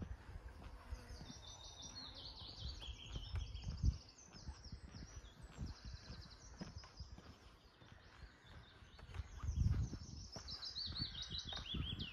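Songbirds singing: rapid trills of high notes that step down in pitch, one run in the first few seconds and another near the end, over low thuds of footsteps on grass.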